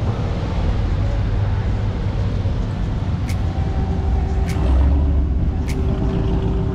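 Steady low rumble of motor vehicles running, with a faint steady hum joining about halfway through and a few sharp ticks about a second apart.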